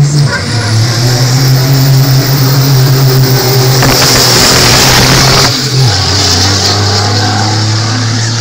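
Diesel racing truck launching down a drag strip at full throttle, its engine loud with a rushing peak as it passes close about four to five seconds in. The engine note then drops in pitch and fades as it runs away down the track.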